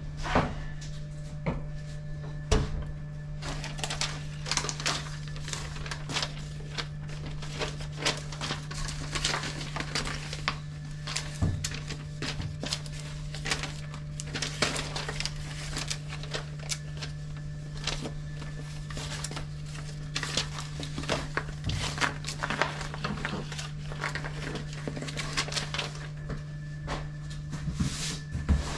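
Cardboard boxes and paper handled while packing parcels: many short, irregular rustles, taps and scrapes, including a label being peeled off its backing. A steady low hum runs underneath.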